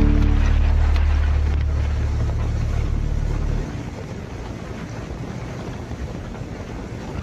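Steady low vehicle rumble with wind on the microphone. It cuts off sharply about three and a half seconds in, leaving a fainter steady hiss.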